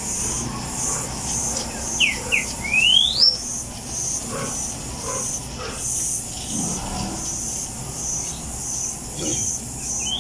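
Insects chirping outdoors in short high pulses a little under twice a second. About two seconds in, a bird gives a whistled call: two quick downward notes, then one long rising whistle.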